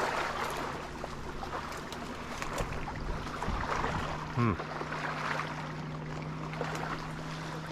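Brush rustling and crackling with scattered small snaps as someone pushes through dense, prickly shoreline bushes, over a steady outdoor background. About halfway through, a steady low hum sets in and holds.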